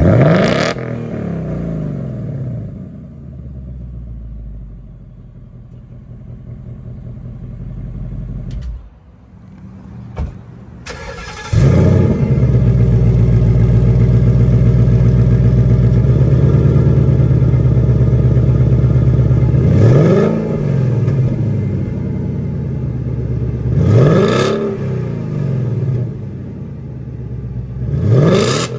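Ford Mustang GT 5.0 V8 exhaust: one quick rev, then idling until the engine shuts off about eight seconds in. A few seconds later a V8 starts with a loud bark into a steady, fast idle, and is blipped three times, each rev rising and falling quickly.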